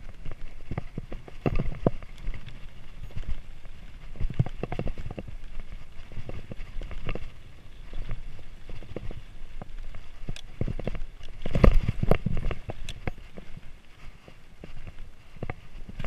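Mountain bike riding over a rough dirt trail: irregular knocks and rattles as the bike jolts over bumps, over a low rumble of tyres on dirt. The heaviest run of jolts comes about two-thirds of the way through.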